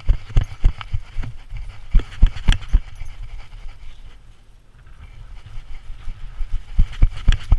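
Rhythmic thumps and knocks of a dog's steps jolting the GoPro mounted on its back, about three a second. They die down for a few seconds in the middle as the dog slows, then start again near the end.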